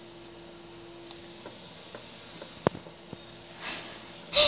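A silicone spatula stirring flour into cookie dough in a glass mixing bowl: soft scraping with a few light clicks against the glass, the sharpest about two and a half seconds in.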